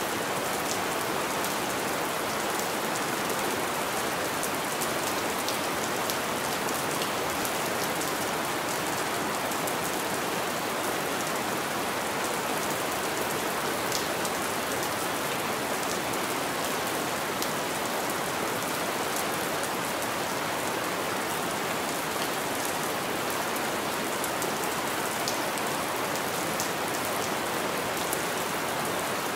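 Steady rain falling on a window pane: an even hiss with scattered faint ticks of single drops striking the glass.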